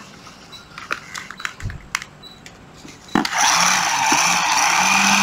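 A few faint clicks of handling, then a little over three seconds in a 12 V cordless impact tool starts up and runs freely at low speed, about 1500 rpm. It makes a steady, smooth whir with a low hum.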